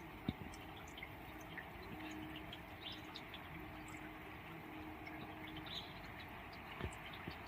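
Steady rain with scattered drips, a couple of louder drops, and faint bird chirps.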